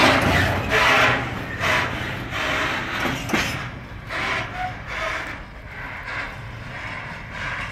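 Empty container flat wagons at the end of a freight train rolling past, wheels clacking over the rail joints in a regular rhythm that fades away as the train recedes.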